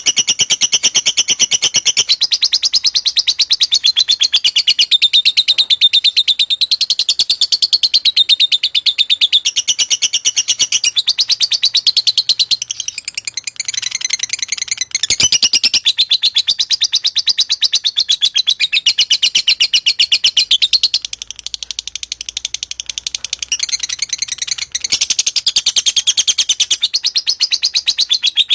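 Lovebird chattering in a long unbroken run of rapid high chirps, the continuous 'ngacor' song used as a lure recording to spur other lovebirds into singing. It grows softer briefly about halfway through and again about three-quarters through.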